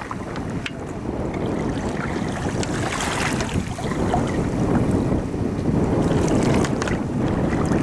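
Wind buffeting the microphone over choppy lake water, with waves lapping and a few faint clicks. It grows louder after about four seconds.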